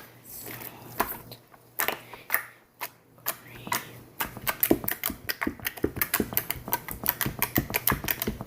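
Soft slime made with shaving cream being squeezed and worked by hand, giving quick sticky clicks and pops, scattered at first and then several a second through the second half.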